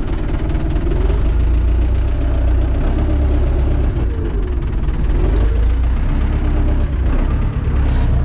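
Renault 651 tractor's diesel engine running steadily, its low chugging loud and close throughout.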